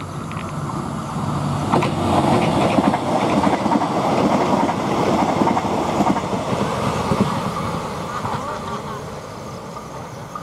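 Yogyakarta airport train (KA Bandara YIA) running past on the track, its rumble and wheel noise swelling over the first couple of seconds, holding, then fading away over the last few seconds.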